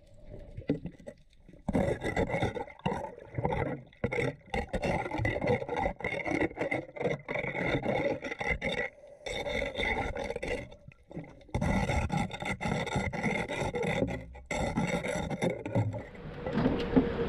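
A scraper rasping barnacles off the hull of a Yamaha W25-CF fishing boat in a run of irregular strokes, with short pauses about a second in, around four seconds in, and twice more in the middle.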